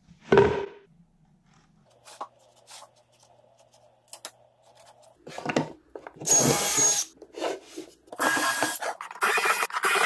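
DeWalt cordless drill boring quarter-inch dowel holes into a board's edge through a metal doweling jig, in several short bursts from about halfway on. A sharp knock near the start, then quiet handling before the drilling.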